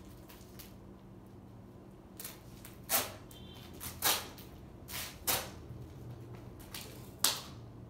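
A handful of short knocks and scuffs, about five spread over several seconds with the sharpest near the end, over a faint steady hum.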